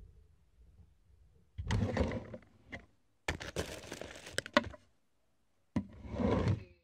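Camera handling noise at close range: three short bursts of rustling, with sharp clicks and knocks.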